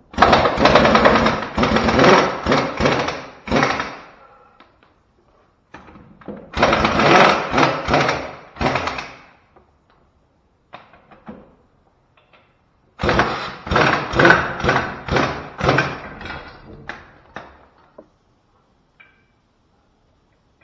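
Pneumatic impact wrench hammering in three bursts of about three seconds each, loosening the wheel-clamp nuts on a Dayton spoke wheel. The nuts are coming loose.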